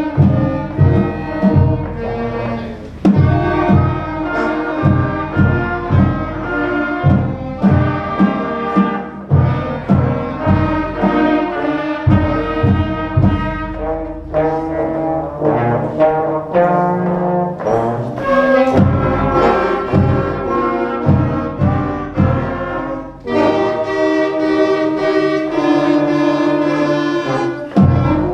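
Beginning concert band playing, brass and woodwinds holding sustained notes over a steady drum beat.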